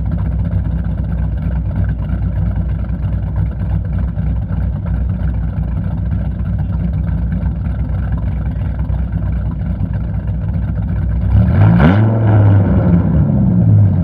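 Gen 2 Dodge Viper GTS's 8.0-litre V10, cammed and fitted with an aftermarket exhaust, idling with a steady low rumble, then revved twice near the end, the pitch rising and falling each time.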